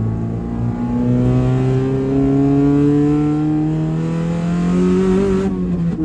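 1994 Honda Civic engine pulling under acceleration, its pitch climbing steadily, then falling away near the end as the revs drop.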